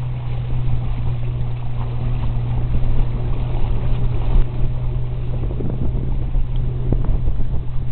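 Wind buffeting the microphone over a steady low drone, aboard a small sailboat under way in a light breeze.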